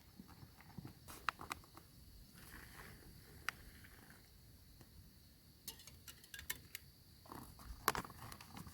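Scattered light clicks and taps from camp cooking gear and food packets being handled, over a quiet background.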